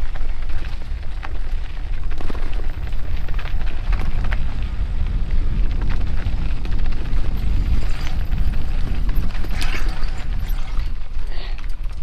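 Mountain bike rolling fast over a bumpy dirt singletrack: a heavy, steady wind rumble on the microphone, with frequent rattles and clicks from the bike, busiest a little after the middle.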